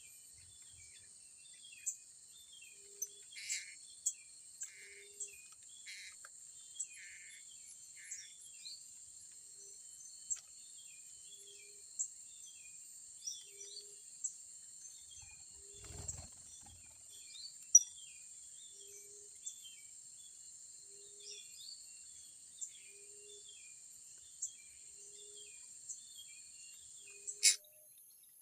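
Blue-crowned hanging parrots giving short, sharp, high chirps every second or two, over a steady high-pitched insect drone. A low thump comes around the middle, and a sharp click near the end.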